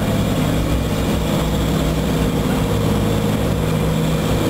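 Boat engine running steadily at low speed, a low even drone that holds the same pitch throughout.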